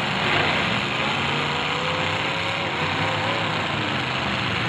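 Engines of several full-size demolition derby cars running together: a steady, loud din with no clear crash.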